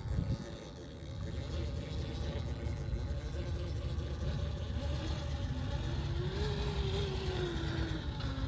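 Rlaarlo MK-07 1/7-scale RC crawler's brushed motor and gear drivetrain whining as it climbs a dirt slope in all-wheel drive. The whine rises and then falls between about five and eight seconds in, over a steady low rumble.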